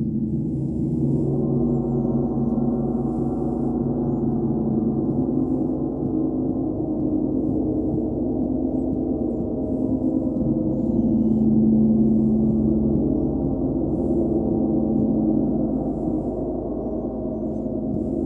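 Large hanging gong played with a soft felt ball mallet, building a sustained shimmering wash of many overlapping tones that fills in during the first second or two and swells a little past the middle.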